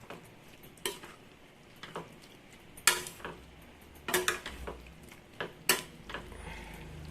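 Metal ladle stirring chopped tomatoes in a kadai, striking and scraping the pan with about five sharp clinks spread through the moment.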